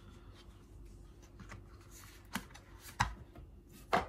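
Hands handling AirPods Pro cardboard packaging and inserts: faint rustling broken by three sharp taps, about two and a half, three and four seconds in. The last tap is the loudest, as a small white plastic case knocks on the wooden tabletop.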